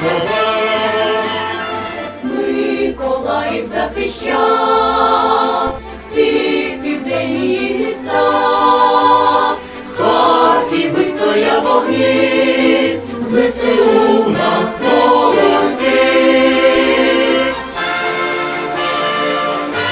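A choir singing in harmony with instrumental accompaniment, in phrases broken by short pauses, turning softer near the end.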